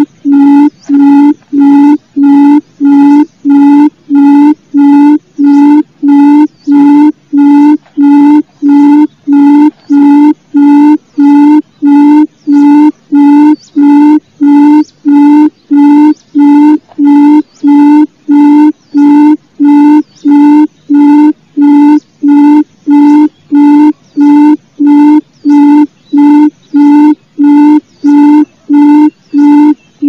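Barred buttonquail (gemek) calling: a long series of low, evenly spaced hooting notes, about three every two seconds, repeated without a break.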